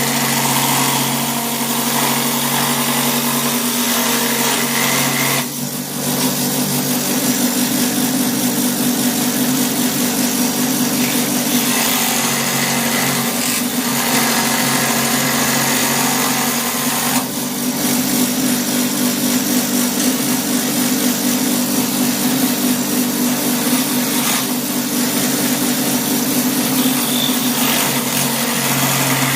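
Milwaukee M12 cordless die grinder running steadily with a constant whine while it grinds into black walnut wood. It eases off briefly twice, about five seconds in and about seventeen seconds in.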